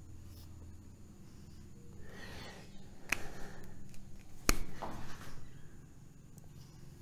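Scratchy strokes of a pen or marker drawing on a writing surface, with two sharp clicks about three and four and a half seconds in, the second the loudest.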